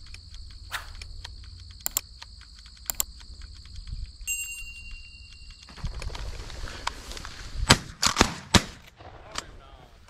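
Several shotgun shots in quick succession about three-quarters of the way in, the first the loudest, fired at a flushed pheasant.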